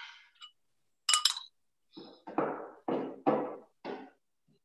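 Kitchen clatter while dough is being shaped: a sharp clink of a utensil about a second in, then a quick run of four or five knocks on the work surface.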